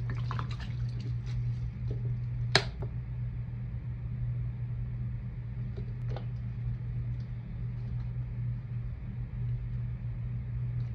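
A steady low hum throughout. In the first second there is a faint crackle of water soaking into dry sponges, then a sharp click about two and a half seconds in and a fainter one around six seconds.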